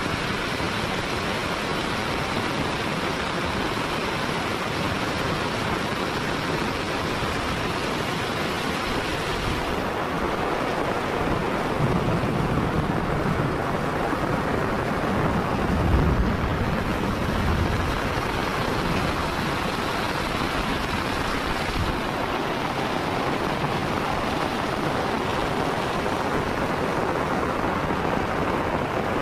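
Heavy rain falling steadily on a wet paved street, a constant hiss. About halfway through, a low rumble swells and fades.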